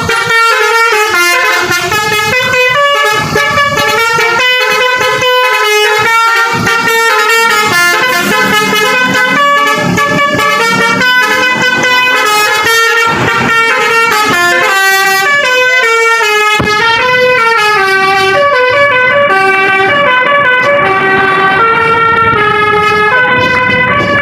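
Indonesian bus 'telolet' musical horns playing rapid multi-note melodies, many short horn notes overlapping. From about two-thirds of the way in, the notes come slower and sparser, stepping up and down.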